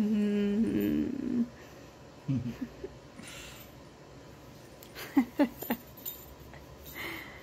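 A woman's voice making a drawn-out nonverbal sound, the cat's imagined reaction. It lasts about a second and a half, held on one pitch and then stepping higher. A few soft short sounds and clicks follow.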